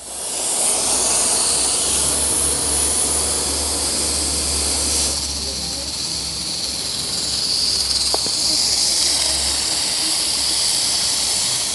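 Steam hissing steadily from the pressure valve of an Afghan kazan, a cast-aluminium pressure cooker, cooking under pressure, over a low hum.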